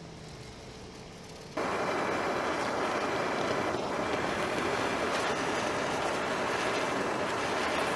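Handheld propane torch lit about a second and a half in, then burning with a steady hiss as its flame heats a copper water pipe to sweat off the old fitting.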